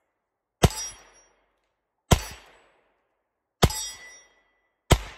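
Four double-action shots from a Colt Model 1894 revolver in .38 Long Colt, about a second and a half apart. Each shot is followed by a short metallic ringing, the sound of the steel target being hit.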